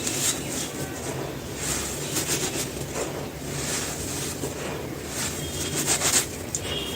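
Dry cement being crumbled: gritty crunching and crumbling in a run of short strokes, the loudest cluster near the end.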